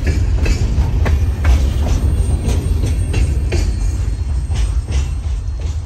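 The last freight car, a covered hopper, rolling past close by: steel wheels rumbling and clicking irregularly over the rails. The sound eases off slightly near the end as the train moves away.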